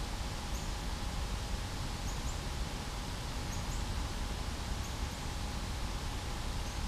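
Outdoor ambience: a steady background hiss and low rumble, with faint, short, high chirps from small birds about once a second.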